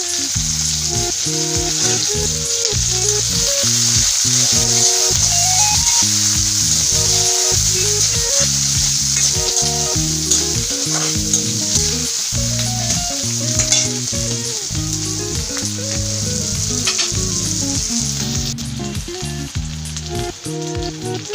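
Food frying in hot oil in a pan, a steady sizzle with stirring, over background music.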